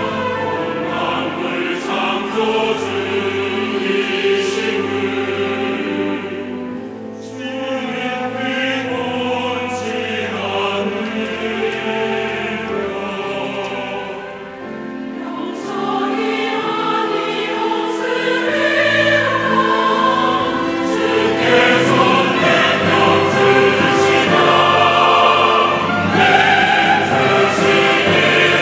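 Large mixed church choir singing a choral anthem in Korean, accompanied by an orchestra with strings. The music eases off briefly twice and grows fuller and louder in the second half.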